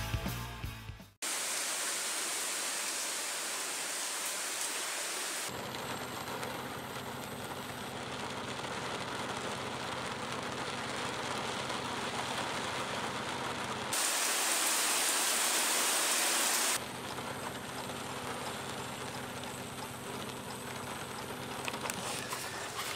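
Heavy rain falling steadily, the sound changing abruptly several times. In two stretches a steady low engine hum runs under the rain, as from inside a car with rain hitting the windshield. The tail of guitar music cuts off about a second in.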